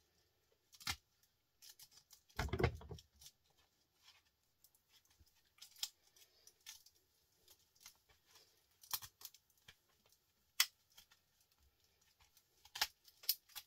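Hand work on a small scrap electrical transformer as its copper winding is being stripped off: scattered sharp clicks of metal and wire, with one longer scraping burst about two and a half seconds in.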